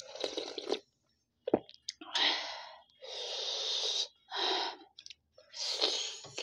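Close-miked slurping of chicken soup from a spoon, then sharp breaths in and out through the mouth, in several short hissy bursts with a click about a second and a half in.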